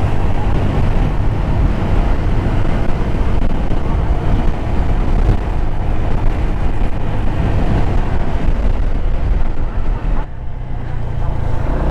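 Motorcycle engine running with wind rushing over the rider's microphone while riding. About ten seconds in the wind rush drops away, leaving a steadier low engine hum.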